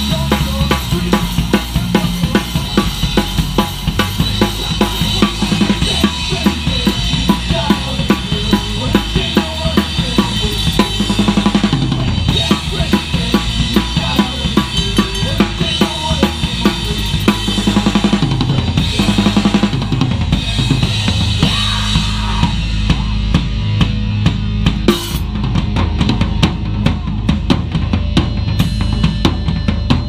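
Horror punk band playing live, the drum kit loudest with fast, steady kick and snare hits, over bass guitar notes that change every second or so.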